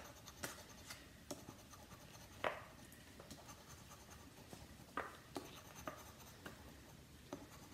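A coin scraping the coating off a paper scratch-off lottery ticket: faint, light scratching broken by a handful of sharper clicks of the coin on the card.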